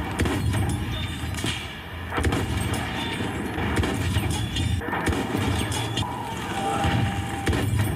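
First-person shooter game audio of a battle: a vehicle engine rumbling under a rapid run of gunshots and impacts.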